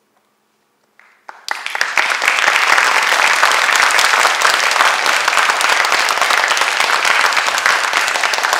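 Audience applause at the end of a performance: it starts about a second in, builds within half a second to loud, steady clapping, and keeps going.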